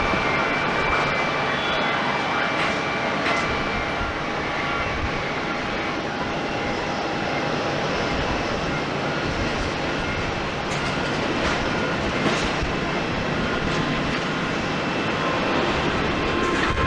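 Airbus A321 airliner's jet engines running: a steady, even rush with a faint high whine, level throughout.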